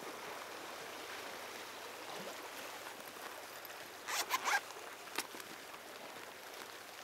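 Zipper on a soft squid-jig (egi) case pulled open in a quick rasp about four seconds in, followed by a single click, over a faint steady hiss of sea and breeze.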